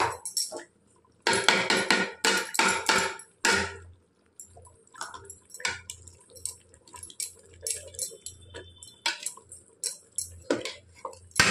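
Metal ladle stirring a thick vegetable curry in an aluminium pot, scraping and knocking against the pot's sides. The strokes come thick and fast between about one and four seconds in, then more scattered.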